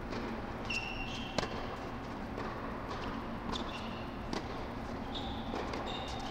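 Tennis rally on an indoor hard court: sharp knocks of racket strikes and ball bounces, the loudest about a second and a half in, with short high squeaks of shoes on the court surface, over a steady low hum.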